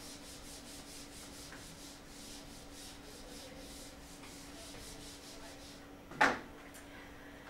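Faint rubbing against a whiteboard over a steady low hum, with one brief sharp sound about six seconds in.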